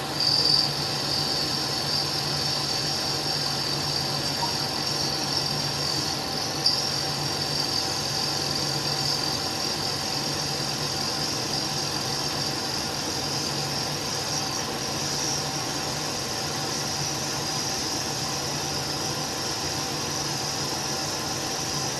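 Hardinge toolroom lathe running at high spindle speed while the turning tool takes a roughing pass along the outer diameter of the part: a steady high-pitched cutting sound over the low hum of the machine, starting about half a second in. A single sharp click comes about seven seconds in.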